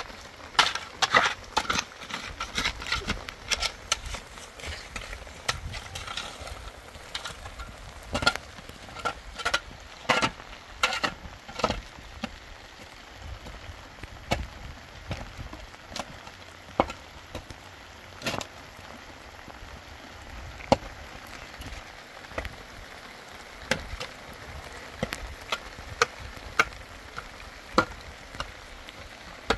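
Rain hissing steadily, with irregular sharp knocks and clatter of handwork, the busiest in the first few seconds.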